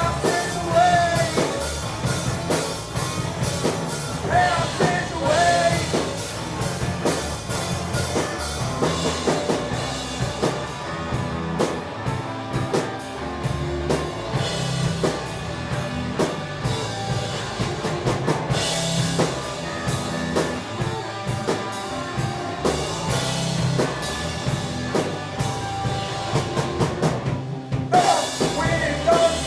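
Live indie rock band playing: drum kit, guitar and bass with a steady beat, and sung vocal lines at the start, a few seconds in, and again near the end.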